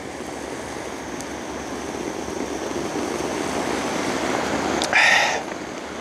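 Small waves washing on a sandy beach, with wind on the microphone, swelling gradually over a few seconds; a short loud rush of noise about five seconds in.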